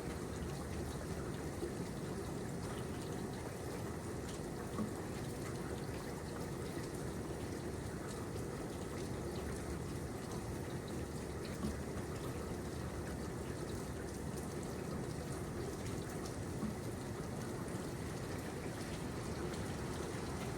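Steady rain falling, with scattered drips and a few slightly louder drops.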